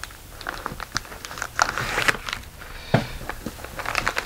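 Fabric of a wheeled tote bag rustling and crinkling as it is handled, with scattered small clicks and a soft thump about three seconds in.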